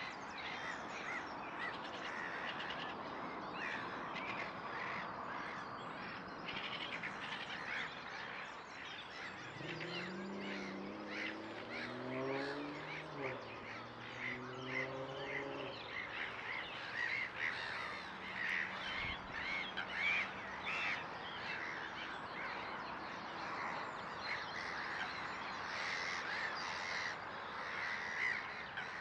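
Lakeside chorus of birds calling, many short harsh calls repeated almost without pause. In the middle a low droning sound rises and falls in pitch for several seconds.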